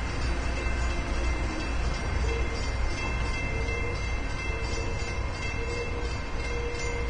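Low, steady rumble of the Emerald Isle car ferry's engines as the ship passes, with a faint steady high hum over it.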